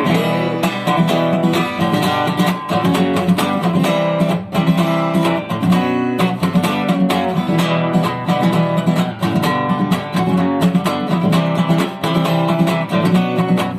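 Acoustic guitar strummed in a steady rhythm, an instrumental passage of chords without singing.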